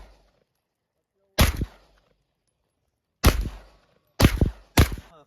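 Four pistol shots from a Beretta M9A3, irregularly spaced, the last two in quicker succession, each with a short ringing tail.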